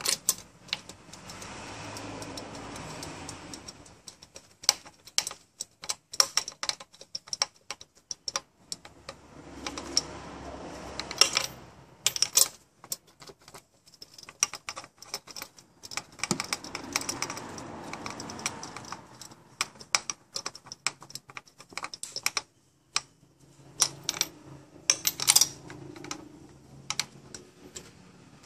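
Metal spark plug socket and extension clicking and rattling irregularly as they are turned by hand, hand-tightening spark plugs into the cylinder head, with a few spells of soft scraping.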